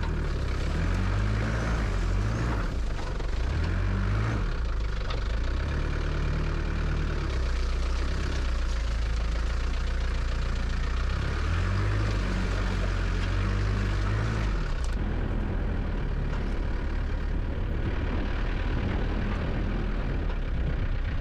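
A motor vehicle's engine running while driving, its pitch rising and falling with changing revs over a steady haze of running noise. The sound starts and cuts off abruptly.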